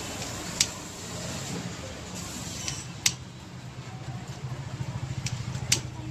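Four sharp clinks over a steady low hum, typical of utensils striking cookware.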